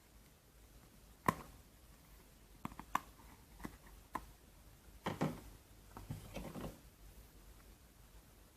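Handling noises: a sharp click about a second in, a few lighter clicks and taps, then two short scraping rustles.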